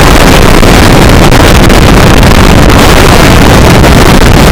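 Heavy wind buffeting the microphone while travelling, a loud, steady rush with the running noise of the vehicle underneath.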